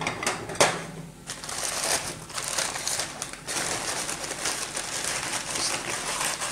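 Brown paper bread bag rustling and crinkling steadily as bread is taken out of it, after a sharp knock about half a second in.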